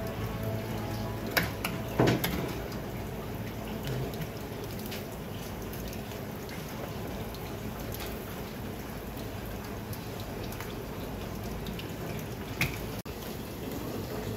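Steady running water, like a tap into a sink, with a few sharp clicks and knocks, one about two seconds in and another near the end.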